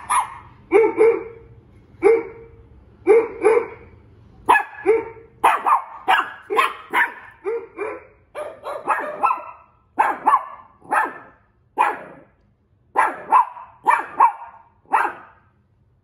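A dog barking over and over, one to two barks a second and sometimes in quick pairs, stopping abruptly shortly before the end.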